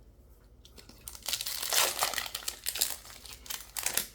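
Foil booster pack wrapper crinkling in the hands in irregular bursts, starting about a second in, as a Magic: The Gathering pack is handled and opened.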